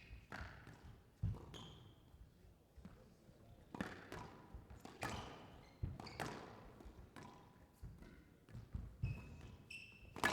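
Squash rally: sharp knocks of racket on ball and ball off the court walls, coming every second or two. Short high squeaks of shoes on the court floor, most near the end.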